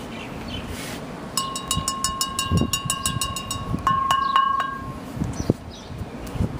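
Wind chimes ringing: a quick run of strikes with lingering tones starting about a second and a half in, then a second cluster with different notes around four seconds in.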